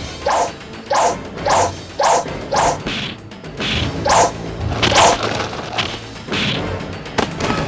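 Kung-fu fight sound effects: about a dozen quick whooshes and whacks of blows and swipes, roughly two a second.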